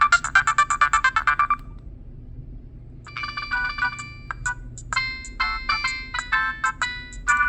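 Nokia 6010 mobile phone playing its preloaded ringtones through its speaker. A fast, evenly repeating tune stops about a second and a half in, and after a short pause a different melody of electronic notes begins.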